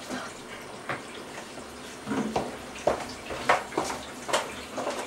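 A bathroom sink tap running in a steady rush of water as hands are washed under it, with a few short louder sounds in the second half.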